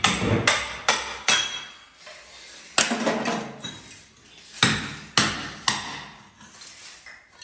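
A hammer driving a steel chisel into the tiled brick front panel of a bathtub, chipping tile and mortar away. Sharp metallic blows come in uneven clusters, about eight in all, each ringing briefly.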